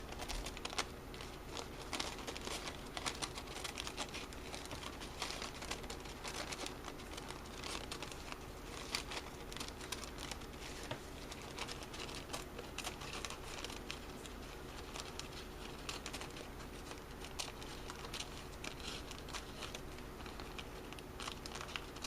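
Paper coffee filter being cut with scissors and handled: a continuous run of small, irregular crinkles and snips.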